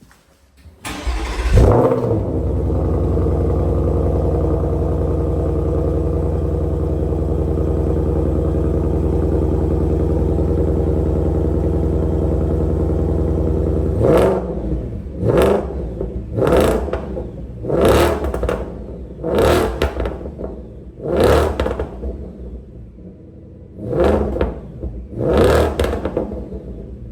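2024 Shelby Super Snake's supercharged V8 on its stock, unmodified exhaust, starting with a burst about a second in and then idling steadily. From about halfway through it is blipped eight times, each rev rising sharply and falling back to idle.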